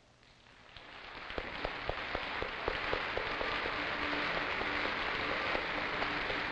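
Concert audience applauding, a dense patter of many hands that swells up from quiet within the first second or so and then holds steady.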